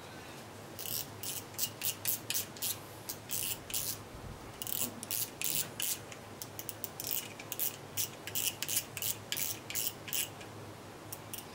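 Yoshikawa CY3000 spinning reel being worked by hand, giving a run of short, high rasping rubs, several a second, with a short pause about four seconds in and only a couple more near the end.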